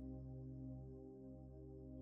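Soft ambient background music: low sustained pad tones held steady.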